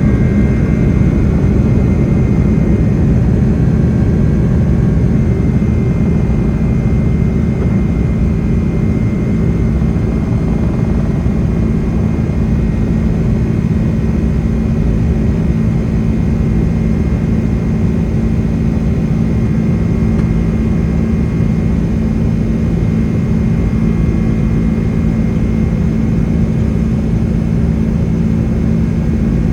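Boeing 767-300ER jet engines heard from inside the passenger cabin: a steady, loud low rumble with a faint high whine above it.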